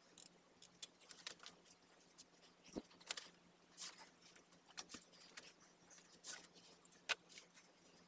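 Faint, irregular clicks and rustles of hands handling wires, plug connectors and small batteries on an opened electric scooter deck, over a faint steady hum.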